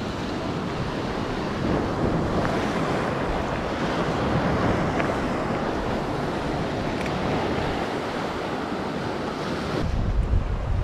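Sea waves washing in steadily, with wind blowing on the microphone; the low wind rumble grows stronger near the end.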